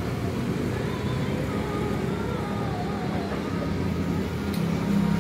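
Roadside traffic noise: a steady low rumble of passing vehicles, with a low steady hum growing louder near the end.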